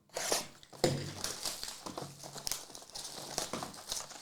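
Plastic wrapping on trading card packaging crinkling and tearing as it is torn open, a run of sharp rustles and crackles.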